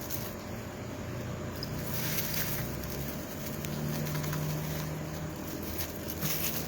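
A low, steady motor hum that grows a little louder for a couple of seconds in the middle, with a few faint clicks.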